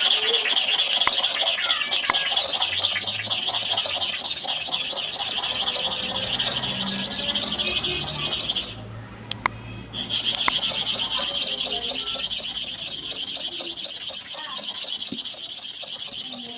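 A barber clipper blade being rubbed rapidly back and forth on an abrasive sharpening surface, a steady scraping that stops for about a second partway through and then resumes a little quieter. The blade is being honed until it shines.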